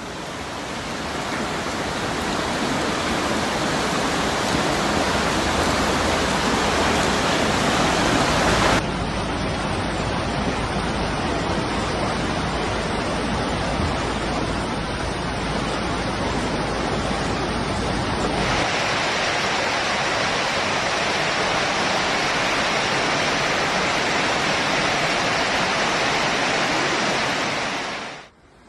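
Floodwater rushing in a steady, even wash of noise, changing abruptly twice as one stretch of water gives way to another, and fading out near the end.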